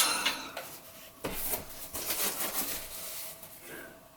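A parcel being opened by hand: packaging rubbing, rustling and scraping, with a few sharp clicks, the loudest right at the start and another about a second in.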